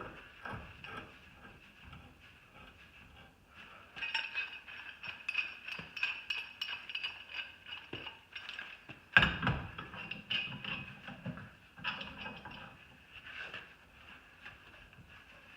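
Milwaukee 12-inch smooth-jaw pipe wrench working a round metal pipe: repeated metal clicks and clinks with a ringing tone, and one louder clank about nine seconds in.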